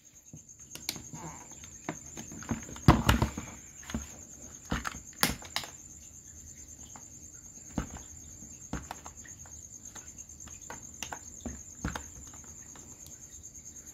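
Scattered clicks and knocks of a clear acrylic filter box and its plastic end fittings being handled and swapped over, with a cluster of clatter about three seconds in and a sharp click about five seconds in. A steady high cricket trill runs behind.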